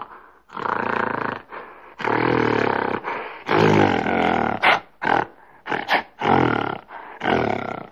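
Gorilla vocalising in a run of about nine loud calls, the longer ones around a second each, with a few short sharp calls in the middle.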